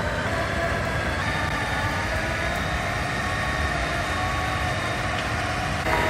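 Doosan DX140W wheeled excavator's diesel engine running while it digs: a steady low rumble with a higher whine on top that shifts pitch about a second in.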